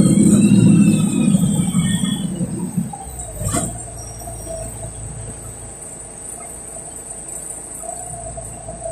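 City bus heard from inside: the engine and drivetrain rumble, with a whine sliding up and down, fades over the first three seconds as the bus slows. A short sharp sound comes about three and a half seconds in, then the bus idles with a quiet steady hum.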